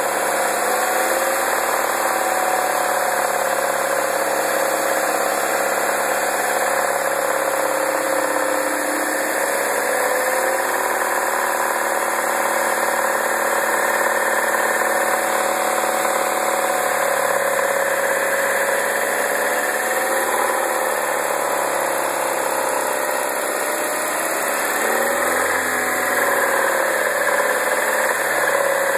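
The 2009 MINI Cooper's (non-S) 1.6-litre four-cylinder engine running steadily at idle, with the rattle noise its owner is recording. Its pitch dips and rises slightly twice in the later part.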